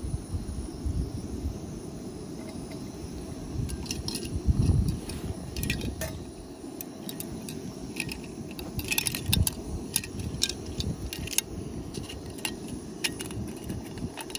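Scattered light clicks and metallic clinks as camping cookware and a bottle cap are handled, with a louder knock about four and a half seconds in, over a steady low rumble.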